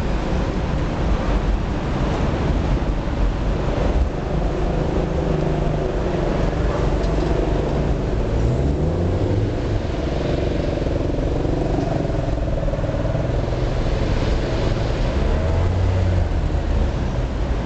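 City street traffic at a busy junction: a steady rumble of car and bus engines idling and moving through, with an engine rising in pitch as a vehicle pulls away about eight seconds in.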